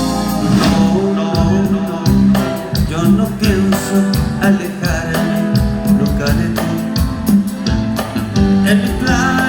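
Band music with a steady beat: the instrumental introduction of a song, before the lead vocals come in.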